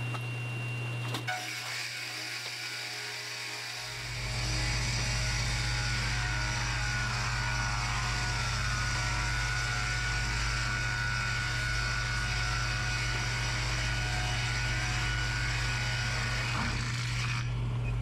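Three-phase electric motor of a Real Steel board edger humming steadily. About four seconds in, a live-edge slab feeds in and the edger's saws rip the bark edge off it: a loud, steady cutting noise that eases off shortly before the end.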